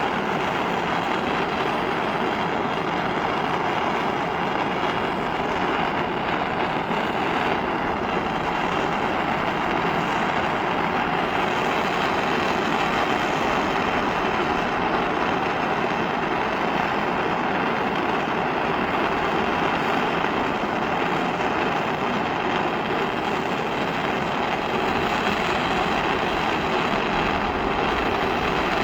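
Handheld butane torch flame burning steadily with an even, unbroken hiss.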